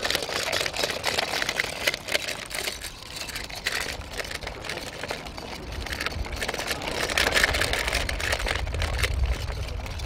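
Dense, irregular crunching and clicking of a dog's wheelchair cart wheels and front paws on a gravelly sand track as the dog runs. From about halfway in, wind rumbles on the microphone.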